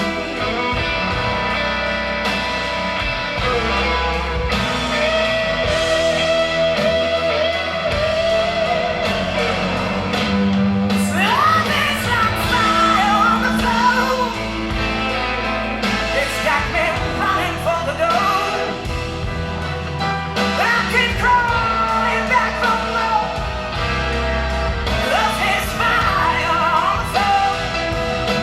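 Blues rock song with electric guitar, bass and drums; from about a third of the way in, a woman's voice wails and sings long wavering notes without clear words.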